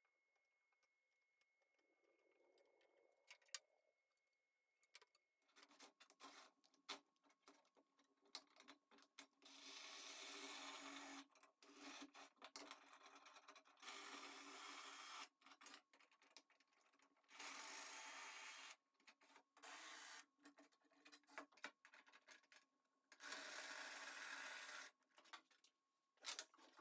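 Cordless drill running in about five bursts of a second or two each, spinning the threaded rods of homemade pipe clamps, with short metal clicks and knocks from handling the clamps between the bursts.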